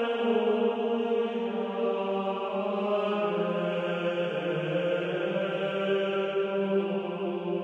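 Background music: slow sacred chant, voices holding long notes that change pitch only every few seconds.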